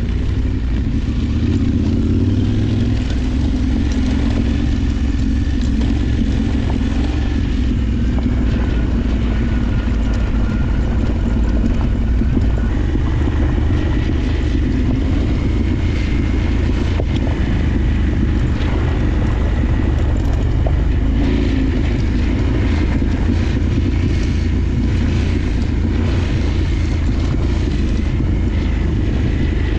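Parallel-twin adventure motorcycle running steadily while riding off-road, its engine noise mixed with a constant rush of wind and road noise.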